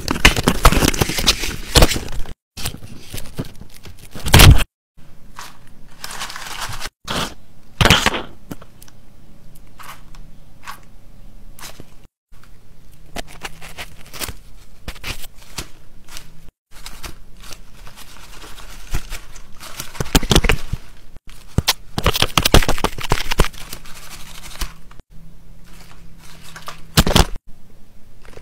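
Paper crinkling and rustling in a series of loud crackly bursts, broken off abruptly several times.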